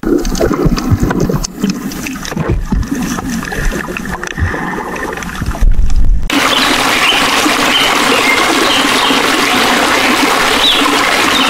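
Underwater recording of water bubbling and sloshing with scattered clicks. About six seconds in it switches abruptly to a steady hiss of rain, with a few faint high bird chirps.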